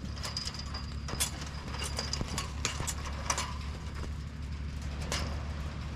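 Irregular scuffs and taps of someone clambering over rough concrete and rubble, heard over a steady low rumble.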